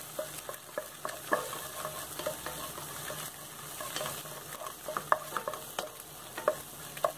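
Eggs frying in hot oil in a non-stick kadai, sizzling steadily, while a spatula stirs and scrapes them around the pan in quick, irregular strokes.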